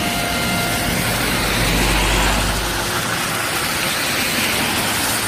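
Heavy rain falling steadily, with traffic on a rain-soaked road: a vehicle's low engine rumble swells and fades about two seconds in, along with tyres on the wet road.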